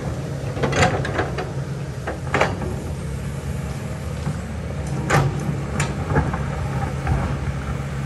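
Kobelco excavator's diesel engine running steadily, with sharp metallic clanks from the working machine: a few in the first two and a half seconds and two more at about five to six seconds in.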